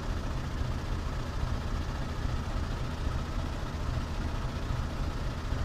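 Pakistan Railways GEU-40 diesel-electric locomotive idling while standing in the station, a steady low rumble.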